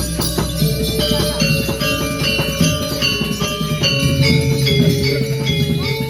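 Balinese gamelan playing: a dense run of struck metal notes that change step by step, over a jangling metallic shimmer.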